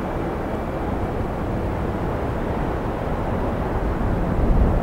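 Wind blowing, a steady low rumble of noise that grows slightly louder near the end.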